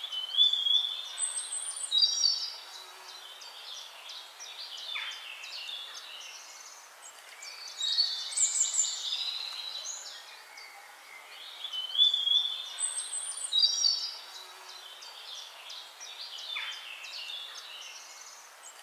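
Birds chirping: clusters of high twittering calls in louder bursts every few seconds, with fainter chirps in between.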